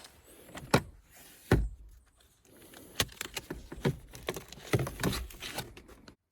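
Plastic interior parts of a Toyota Corolla Axio being handled to reach the cabin air filter: a series of sharp clicks and knocks with rustling between them, and one heavier thump about a second and a half in.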